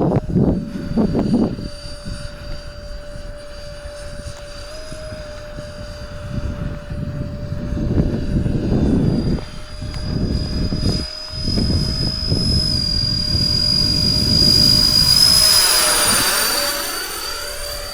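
Electric ducted fans of a large RC model L-1011 airliner whining steadily at reduced throttle, stepping up slightly in pitch a couple of times. The whine grows louder with a swishing, phasing sweep as the model passes close, about two-thirds of the way through, then fades.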